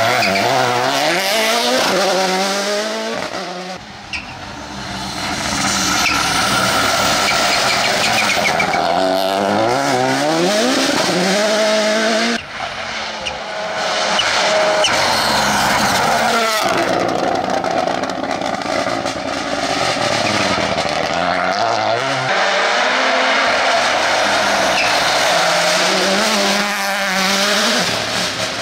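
Toyota GR Yaris rally car engine revving hard at speed. Its pitch climbs steeply and drops again at each gear change, over several passes.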